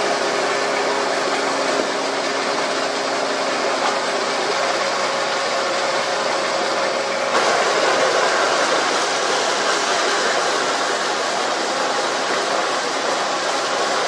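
Belt-driven wood drilling machine running, its electric motor and belts giving a steady hum. About seven seconds in, the bit is fed into the timber and a louder, rougher cutting noise takes over.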